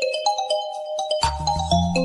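A smartphone ringtone: a quick melody of short bell-like notes, with a drum beat and a bass line coming in a little over a second in.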